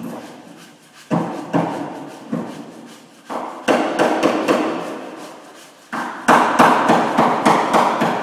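Hammer blows on the sheet-metal rear fender of a Mitsubishi L200 pickup during panel beating: a few single strikes, then two quick runs of ringing metallic blows.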